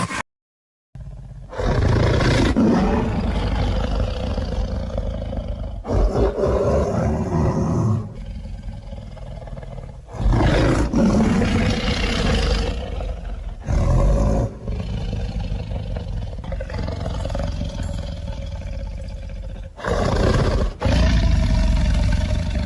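A big cat roaring, several long low calls one after another that swell and die down, after a brief silent cut at the start.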